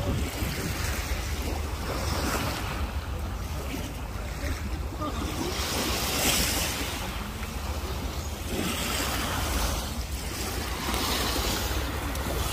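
Sea waves washing in, rising and falling in hissy surges every few seconds, with wind buffeting the microphone as a steady low rumble.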